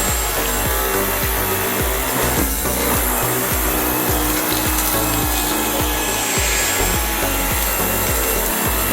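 Dyson V15 Detect Plus cordless stick vacuum running as its cleaner head is pushed back and forth over the floor, sucking up spilled food debris, with a repeated scraping rub from the strokes.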